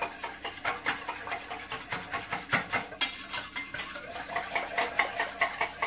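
Wire balloon whisk stirring a milk and flan mixture in a stainless steel saucepan, its wires clicking against the pan in a fast, even rhythm, about four strokes a second.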